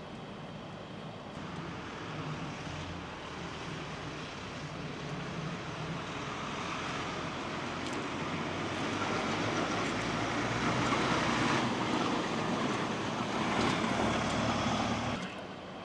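Steady mechanical rumble with a low hum, growing louder over about ten seconds and cutting off suddenly near the end.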